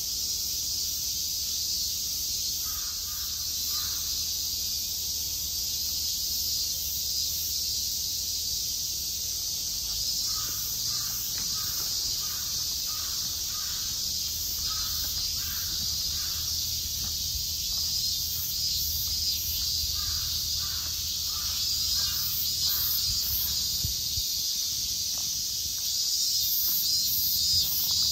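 A crow cawing in several series of short harsh calls, a few caws in quick succession each time, over a steady high-pitched insect chorus and a low background rumble.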